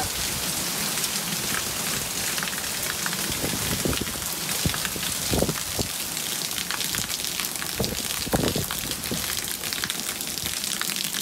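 Small hailstones and heavy rain pelting the surfaces, a steady dense hiss made of countless tiny clicks. A few dull knocks stand out in the second half.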